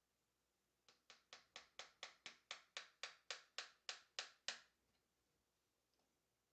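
Claw hammer tapping a small tack nail through fabric into a wooden canvas stretcher bar: about fifteen light, quick taps, roughly four a second, growing louder, stopping a little past halfway through.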